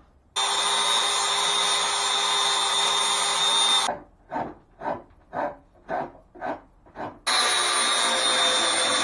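Angle grinder with an 80-grit sanding disc running against a wooden hammer handle, a steady whine and grind. About four seconds in it gives way to eight short scraping strokes, two or three a second. The grinder starts again about seven seconds in.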